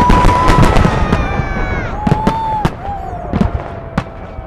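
Festive fireworks salute: many sharp bangs in quick succession, thickest in the first two seconds and thinning toward the end, with several long whistles that drop in pitch as they fade.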